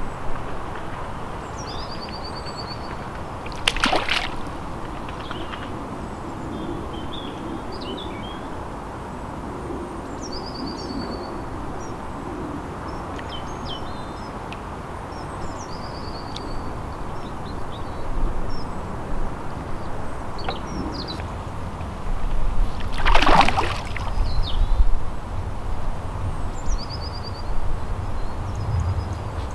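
Small birds chirping and trilling repeatedly over steady outdoor ambience at the edge of a pond, with a splash in the water about four seconds in and a longer, louder splash a little over twenty seconds in.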